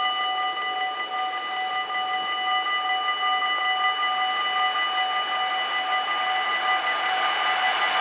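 The electric warning bells of a Dutch AKI level crossing ring steadily with a metallic tone. An approaching train's noise swells over the last couple of seconds.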